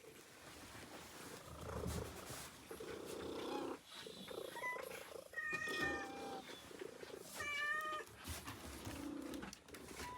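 Cat meowing: three short meows in the middle of the clip, the last a bit lower and longer, over a low, uneven rumbling that may be purring.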